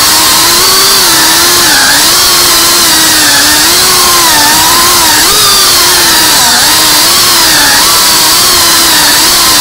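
FPV quadcopter's motors and propellers buzzing loud and close, heard from the drone's onboard camera; the pitch keeps rising and dipping as the throttle changes.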